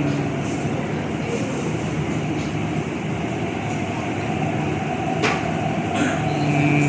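MTR East Rail line R-train, an electric multiple unit, running at the platform with a steady rumble and a low hum that is strongest near the start and end. A sharp click sounds about five seconds in.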